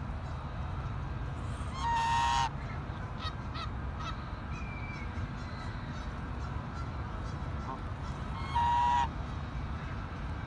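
Domestic swan goose (Chinese goose) honking twice, about six seconds apart, each a loud, steady, half-second call.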